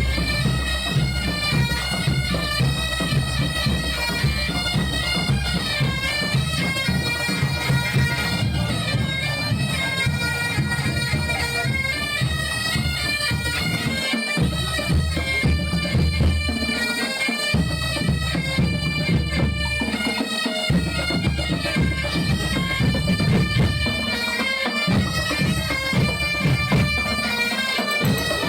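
Scout band bagpipes playing a tune, the melody moving in steps.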